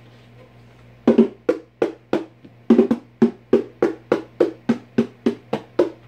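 A pair of bongo drums struck by hand in a steady, even beat of about three hits a second, starting about a second in.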